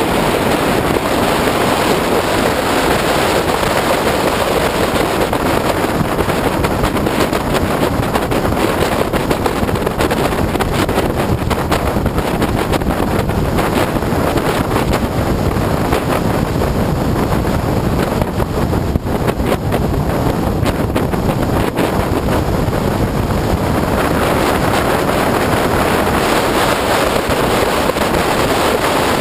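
Wind rushing over the microphone, mixed with the road and engine noise of an Opel Speedster roadster driven at speed on track. The noise is loud and steady, with no clear engine note standing out.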